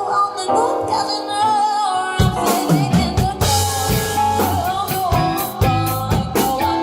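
A band playing a pop-rock song. A wavering lead melody runs over light accompaniment, and bass and drums come in about two seconds in.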